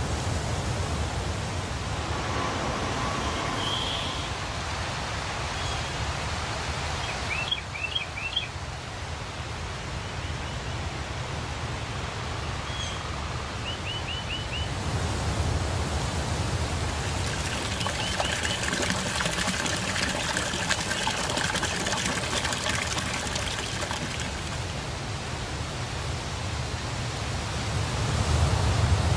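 Outdoor ambience: a steady rushing noise with a low rumble under it, and bird chirps now and then in quick runs of three or four.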